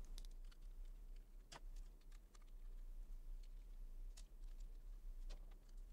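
Faint, scattered small clicks and ticks: a screwdriver working the screws out of a laptop hard drive's steel mounting bracket, with the metal bracket and drive being handled.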